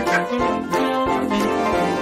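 Instrumental background music: a light, bouncy tune of held notes over a steady beat.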